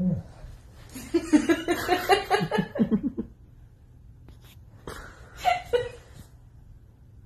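A person laughing: a quick run of short laughs for about two seconds, then a couple of brief laughs or sounds a little later.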